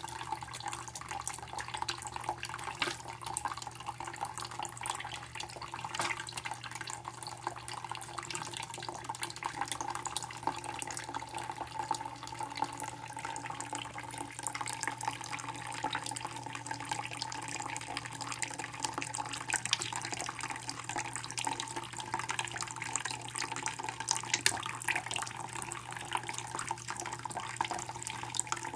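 A thin stream of tap water running into a plastic bowl of water in a sink, with irregular splashing as a violet lovebird bathes and flaps in the bowl.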